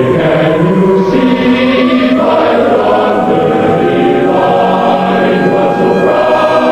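Choir singing long held notes that slowly slide in pitch.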